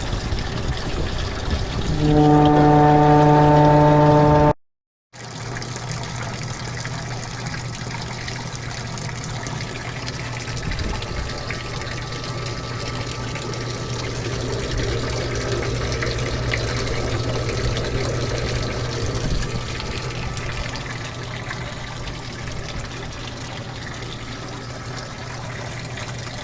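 Evaporative swamp cooler running, with water trickling and a low steady motor hum. About two seconds in, a loud steady hum sounds for about two and a half seconds, then cuts off.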